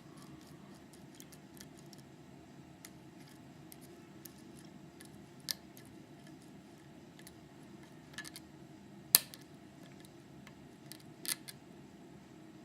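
Lock pick and tension wrench working the pin-tumbler keyway of a hardened-steel padlock. There is faint metal scraping and a few sharp metallic clicks; the loudest comes about nine seconds in.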